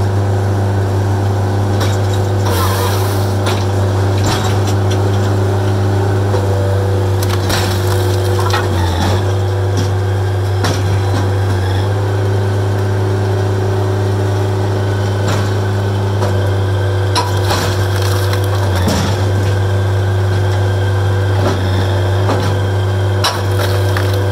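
Dyna SC-16 firewood processor running steadily, its engine drone dipping briefly in pitch a few times, while oak rounds crack and splinter on the splitting wedge and split pieces knock against each other and the machine.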